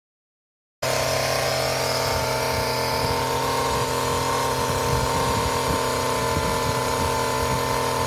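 An engine running steadily at a constant speed, a continuous hum that cuts in abruptly after nearly a second of silence.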